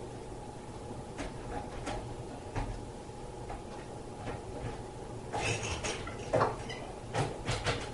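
Scattered light clicks and knocks of small objects being handled and set down, with a few close together past the middle, over a faint steady hum.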